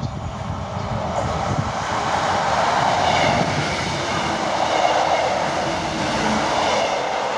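Two coupled Class 158 Express Sprinter diesel multiple units passing through the station at speed: a loud, steady rush of wheel and rail noise that builds over the first couple of seconds and then holds.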